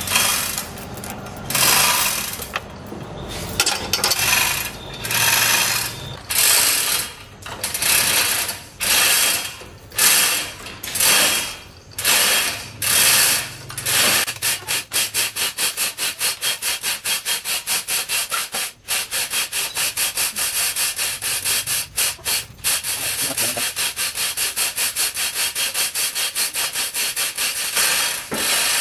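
Manual chain hoist hauled hand over hand while lifting a small car. The hand chain rattles and the hoist's ratchet clicks, first in slower, uneven pulls, then from about halfway in a quick, even run of clicks.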